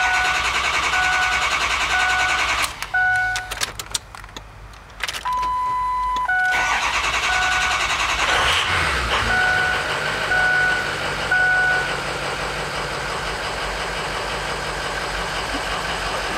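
Ford 6.0 L Power Stroke V8 turbodiesel in a 2003 F-250 Super Duty being cranked on its starter, stopping, then cranking again and catching about 8 s in, then settling into a steady idle: a hard start. The truck's warning chime beeps repeatedly through the cranking.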